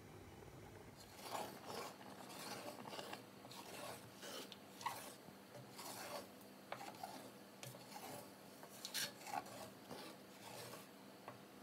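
Wooden spatula stirring and scraping a thick, crumbly cottage-cheese mixture in a pot, a rasping scrape about twice a second. The strokes start about a second in and stop shortly before the end.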